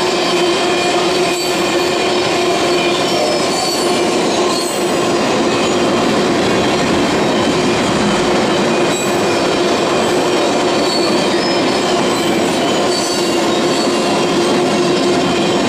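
A string of empty oil tank cars rolling past, a steady rumble and rattle of steel wheels on rail with a continuous metallic wheel squeal ringing over it.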